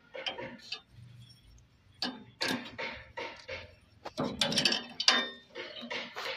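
Metal clinks and ticks of a spanner and brass gas fittings being handled and tightened as a gas fryer's valve and pilot tubing are refitted, in irregular clusters.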